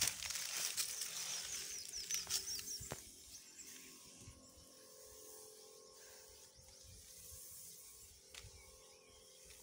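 Rustling and scratching of dry grass and corn leaves with a few sharp clicks, loudest in the first three seconds, then settling to a faint steady hiss.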